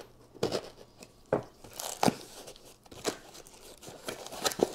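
A small cardboard box being torn open and its packaging handled: irregular crunching, tearing and crinkling, a handful of sharp strokes scattered through.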